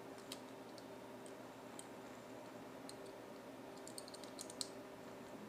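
Faint, scattered clicks and taps of a small metal tackle-box latch and cut plastic pieces being fitted together by hand, a little cluster of them about four seconds in, over a low steady hum.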